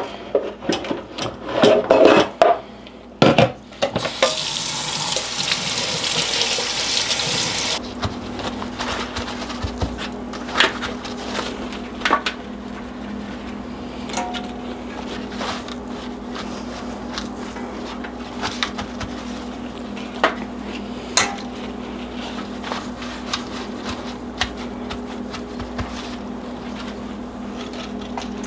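Kitchen tap running into a stainless steel sink for about four seconds to rinse lettuce leaves, cut off abruptly, after a few loud knocks of containers being handled at the sink. Then a steady low hum with light clicks and rustles as the leaves are handled.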